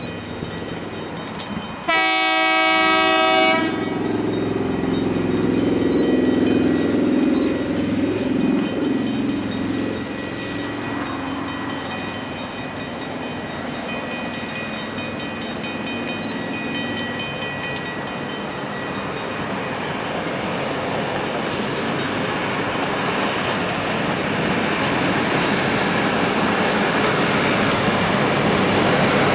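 Freight train hauled by two KiwiRail class 30 (EF class) electric locomotives: one horn blast of about a second and a half, about two seconds in, then the train's rumble and wheel noise, growing steadily louder as the locomotives come up close.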